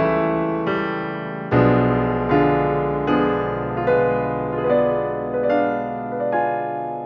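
Background piano music, slow and gentle, with notes or chords struck about once a second, each one fading before the next.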